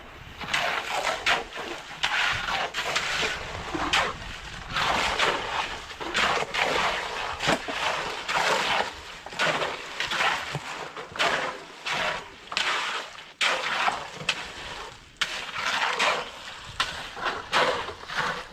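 Wet concrete being shovelled and spread by hand on a beam-and-slab pour: an irregular run of scrapes and slaps, several a second.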